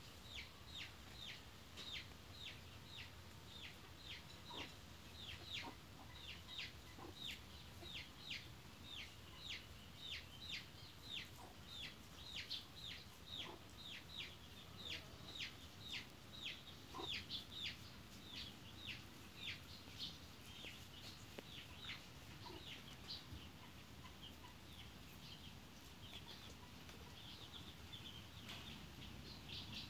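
A steady run of high, downward-sliding peeps, about two a second, like a young chick peeping. They grow weaker after about twenty seconds.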